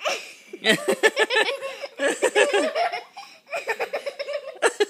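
A child laughing hard: a high-pitched run of quick giggles, with a short break about three and a half seconds in.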